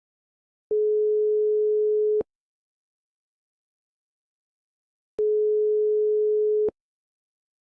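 Telephone ringback tone: a steady single beep about a second and a half long, then about three seconds of silence, then the same beep again, each with a slight click as it switches on and off.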